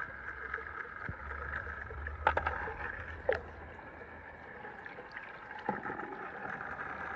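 Water sloshing and dripping as a hand moves through swimming-pool water and lifts out a small wet toy, with a few light splashes or knocks, over a steady faint background hum.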